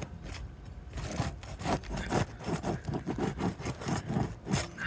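Quick repeated scraping strokes of a tool being worked under sealed asphalt roof shingles to free their nails, about two to three strokes a second.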